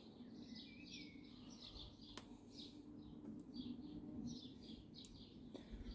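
Faint birds chirping, short repeated chirps over a quiet background, with a single faint click about two seconds in.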